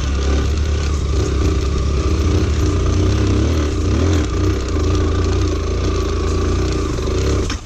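Lifan KPT motorcycle engine running at low, wavering revs on a rough downhill dirt trail, with wind and rattle on the bike-mounted camera. The sound cuts off abruptly near the end.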